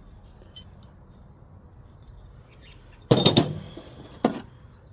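Metal hand tools clinking as they are handled and set down: a quick cluster of clanks about three seconds in and one more a second later, over a faint steady high chirring in the background.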